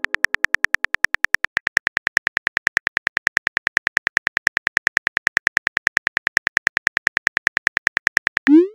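Phone keyboard typing clicks in a fast, even run, about ten a second, as a text message is typed out. A short rising tone near the end as the message is sent.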